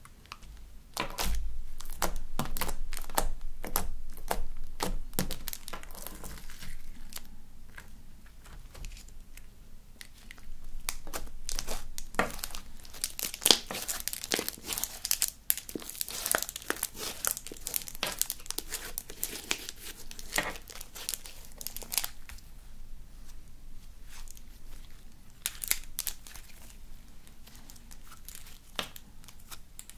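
Black magnetic putty slime, still slightly sticky, being stretched, folded and squeezed by hand: wet sticky crackling with many small sharp clicks and pops of trapped air bubbles. It is busiest near the start and through the middle, quieter in between and toward the end.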